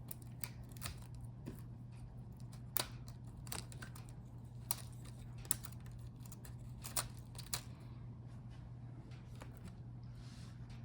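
Small, scattered clicks and light scrapes of cable connectors being unplugged from a laptop motherboard, over a steady low hum.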